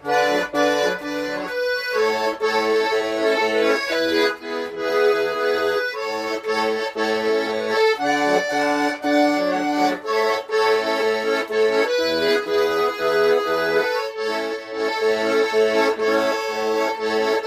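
Garmoshka, a Russian button accordion, playing a traditional tune: a melody over a regular alternating bass-and-chord accompaniment.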